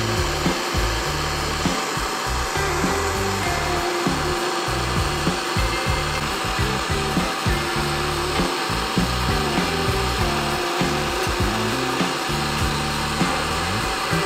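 Handheld gas torch flame hissing steadily, a rough even rush that starts at once and holds without a break, over a low background music bed.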